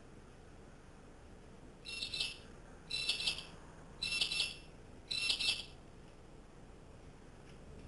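A cat toy jingling in four short, bright bursts about a second apart as a currawong plays with it.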